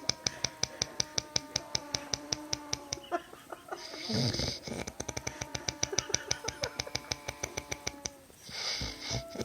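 A man snoring, a chainsaw-like rattle: two long snores, each a fast flutter of about ten pulses a second over a steady drone. A breathy hiss comes between them and again near the end.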